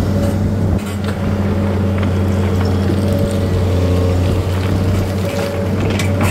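Engine of the machine levelling the stone, running steadily with a constant low hum, with a few sharp clicks over it.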